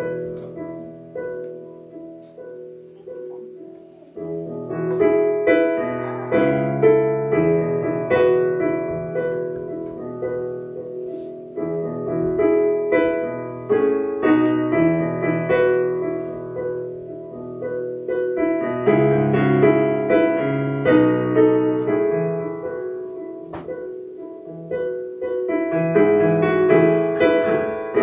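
Solo piano playing a postlude after the benediction, chords ringing and fading. It starts soft and grows fuller about four seconds in, swelling again near the middle and near the end.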